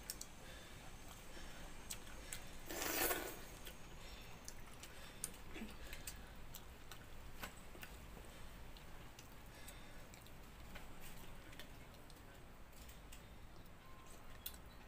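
Quiet eating sounds as pakhala (rice soaked in water) is eaten by hand: scattered small clicks and smacks of chewing, with one louder rush of noise about three seconds in.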